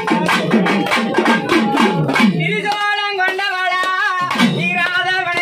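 Pambai and udukkai drums playing fast, even strokes, the low drum pitch sliding up and down. From about halfway a man sings a devotional folk song over the drums.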